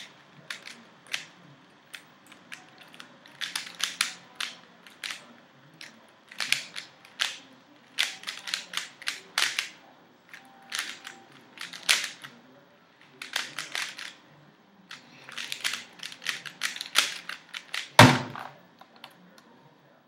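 Dayan Guhong v1 3x3 speedcube being turned fast: bursts of rapid plastic clicks and clacks from the layers turning, with short pauses between bursts. About 18 seconds in comes one loud thump as the cube is put down and the timer stopped.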